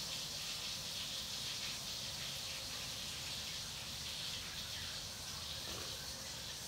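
Steady, even hiss of background noise with no clear events in it.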